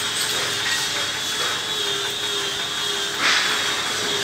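A steady mechanical hum with a thin high whine, like a machine or fan running. A short burst of noise comes about three seconds in.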